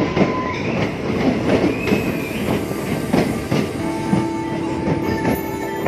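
Passenger train running on the rails, with a steady rumble and irregular clicks from the wheels over rail joints. High wheel squeal comes and goes: one tone rises in the first two seconds, and a steady squeal sets in about four seconds in.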